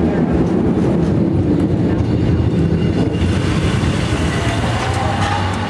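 San Francisco cable car running along its street rails: a steady rumble and rattle of the car on its track.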